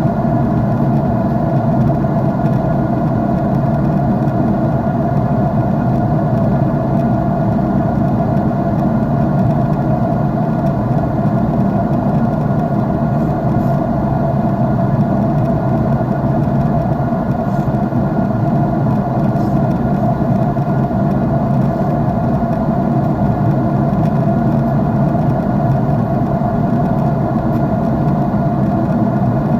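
Airliner cabin noise in flight: a steady, unchanging drone of the jet engines and rushing air, heard from inside the cabin by a window seat.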